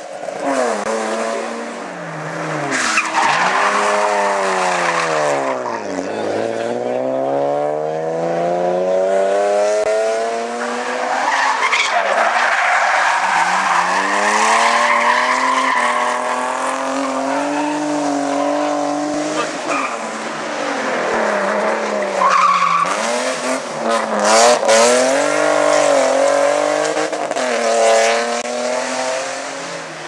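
Hillclimb race cars, among them BMW 3 Series saloons, accelerating hard through a bend one after another, engines revving up and dropping back again and again through gear changes as each car passes. Tyres squeal at times.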